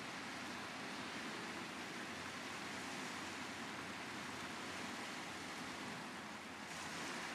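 Small waves breaking and washing over a rocky shore, a steady hiss of surf.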